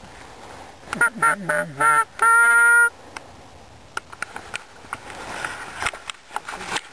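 Hand-blown goose call calling to incoming geese: a quick run of short clucking notes about a second in, then one long, loud, steady honk. Faint ticks follow.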